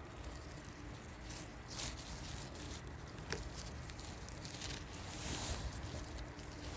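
Rustling and crackling in forest undergrowth, with a few sharper snaps, over wind rumbling on the microphone.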